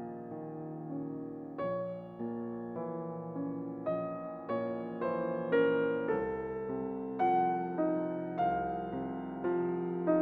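Background music: soft piano or electric piano playing gentle chords, a new note or chord struck about once a second and fading.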